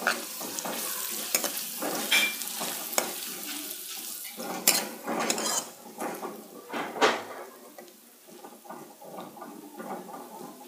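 A metal ladle scrapes and clinks against a metal karahi as onions and spices are stirred and fried in hot oil, with a steady sizzle underneath. Several louder scrapes and knocks come through, and the stirring eases off about eight seconds in.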